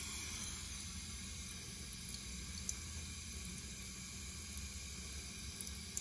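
Toto Drake II toilet tank slowly refilling after a flush: a faint, steady hiss and trickle of water through the fill valve and the black bowl-refill tube. The flow is weak because the fill valve is partly blocked by debris from a disintegrated washer in the shutoff valve.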